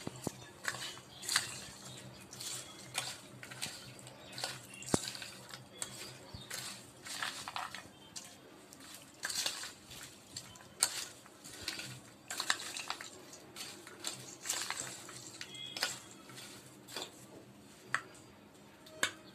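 Metal spoon stirring fried kadalai with curry leaves and spice powder in a steel bowl: irregular clinks and scrapes of the spoon against the bowl, with the legumes rattling against each other.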